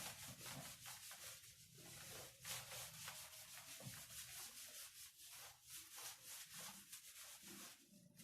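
Faint, irregular scratching strokes of writing on a board.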